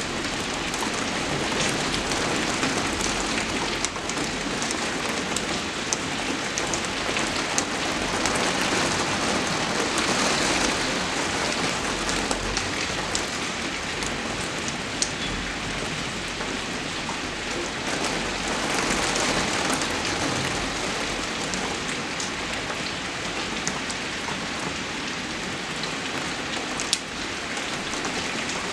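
Steady rain falling: an even hiss with scattered sharp drop ticks, swelling slightly about ten and again about nineteen seconds in.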